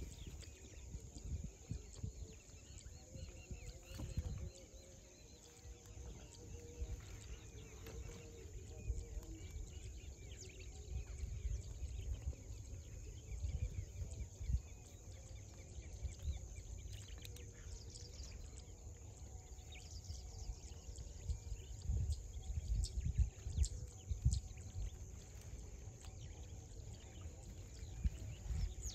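Outdoor ambience: wind buffeting the microphone in uneven low gusts, over a faint steady high hiss, with a few soft clicks and knocks.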